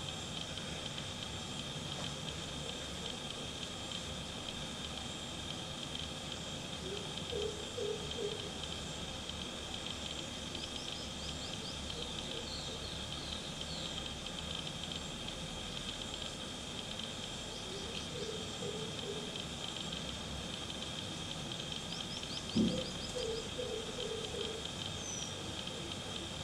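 Garden ambience: a steady high-pitched hiss throughout, with faint short bird chirps now and then and a single soft thump about three-quarters of the way through.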